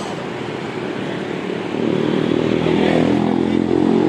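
Street traffic passing, with a small motorcycle engine growing louder about two seconds in as it comes close.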